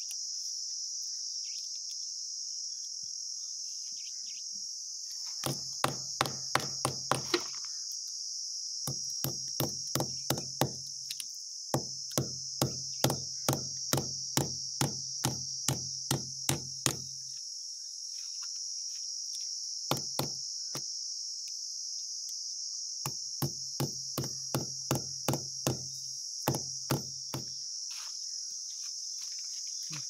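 Hand hammer driving steel nails through metal pipe clamps into a plastered wall, in several runs of quick, sharp strikes, about three or four a second, with pauses between the runs. Insects chirr steadily underneath.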